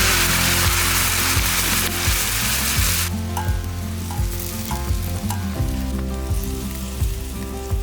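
Food sizzling as it fries, with the sizzle cutting off suddenly about three seconds in. Background music with steady low notes plays throughout.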